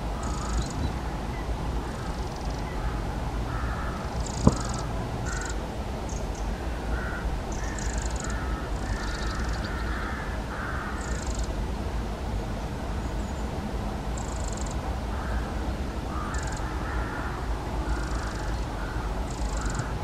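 Short, scattered high calls of a Eurasian wren, with lower, harsher calls in between, over a steady low rumble. A single sharp click about four and a half seconds in.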